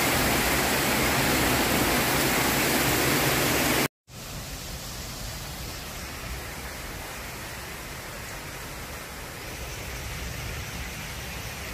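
Heavy tropical rain pouring steadily on roofs and trees. About four seconds in it cuts off abruptly for a moment, then a quieter steady hiss follows.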